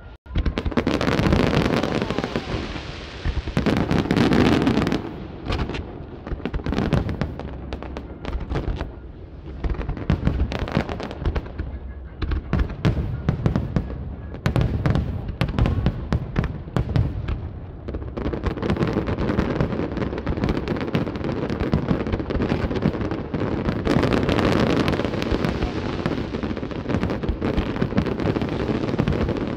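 Aerial fireworks display: a dense, continuous barrage of shell bursts, many overlapping booms and bangs with hardly a gap.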